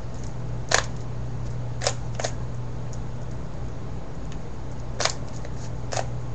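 Plastic puzzle cube's layers clicking as they are twisted, about five sharp clicks spread unevenly, with the cube being turned at random so that it will come apart. A steady low hum runs underneath.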